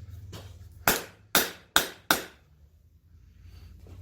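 Hand hammer striking hot 5160 coil-spring steel on the anvil: a light tap, then four sharp blows in quick succession, each with a brief ring, as the chisel stock is knocked straight. A low steady hum runs underneath.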